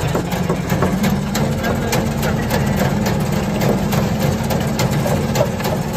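Roller-press briquetting machine running steadily with a low hum, with many small clicks and knocks as pressed calcium oxide balls drop from the rollers.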